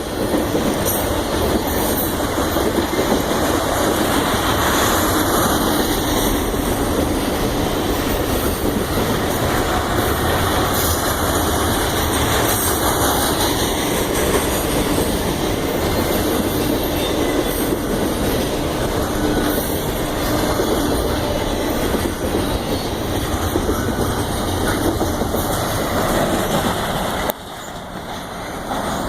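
Union Pacific train rolling past: a steady, loud rush of wheel-on-rail noise from the passing cars, with no horn. The noise drops suddenly about two seconds before the end.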